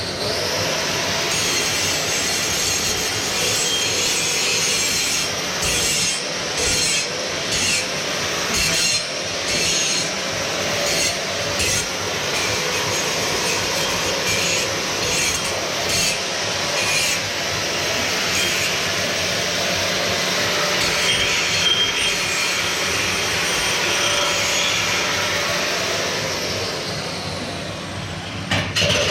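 Angle grinder working on steel plate: a loud, continuous grinding rasp that wavers as the disc bites, then cuts off abruptly at the end.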